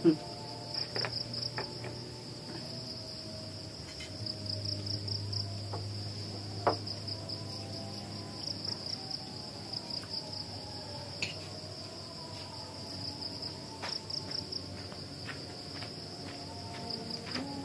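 Night insects chirping in a steady, high, pulsing trill, with occasional soft clinks of spoons on plates.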